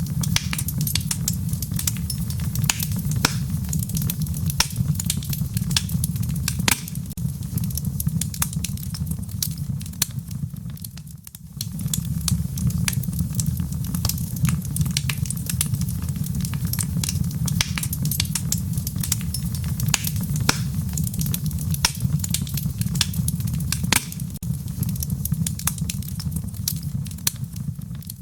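Wood fire burning in a fireplace: many sharp crackles and pops over a steady low rumble from the flames. The sound dips briefly about eleven seconds in.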